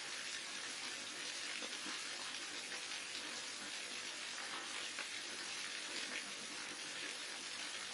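Waterfall: a steady, unbroken rush of falling water, bright and hissy, with little deep rumble.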